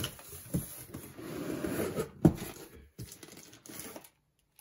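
Cardboard flaps of a sewing-machine box being pulled open by hand, scraping and rustling, with one sharp knock a little after two seconds in.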